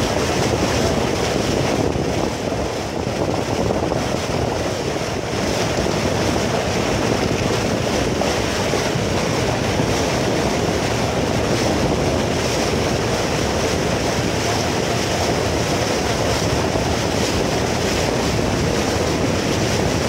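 Speedboat under way at speed: a steady, loud rush of engine and water against the hull, with wind buffeting the microphone. The level dips slightly a couple of seconds in.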